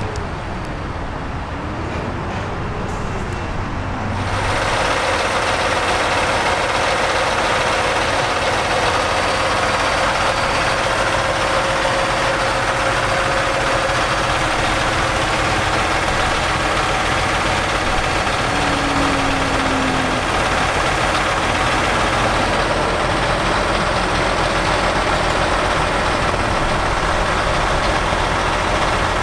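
Heavy diesel truck engine idling steadily close by. It starts abruptly about four seconds in, after a few seconds of lighter traffic noise with a faint wavering tone.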